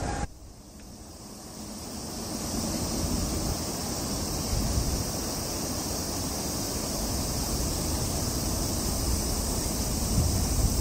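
Steady outdoor ambience: low wind rumble on the microphone under a steady high-pitched hiss. It drops sharply just after the start, at a cut, then builds back over about two seconds.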